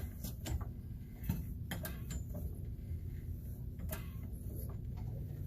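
Vehicle jack being worked to lift a Chevy Silverado pickup: irregular metallic clicks and knocks over a steady low hum.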